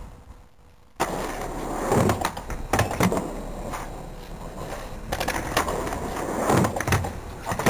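Skateboard wheels rolling over asphalt with a steady rumble that starts after a quiet first second, broken by several sharp clacks of the board striking the ground.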